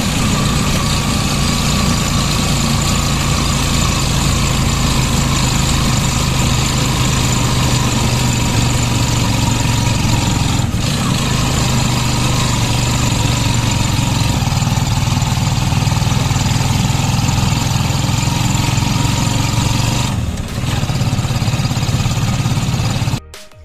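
A motor vehicle's engine running steadily with a low hum and a broad rushing noise. It dips briefly about twenty seconds in and cuts off abruptly just before the end.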